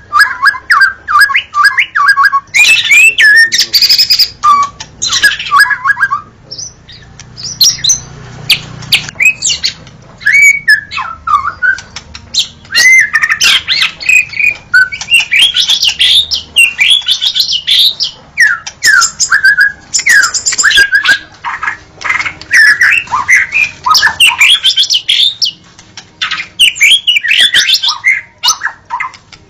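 White-rumped shama (murai batu) singing a loud, varied song of rapid whistled notes and chattering phrases, broken by short pauses.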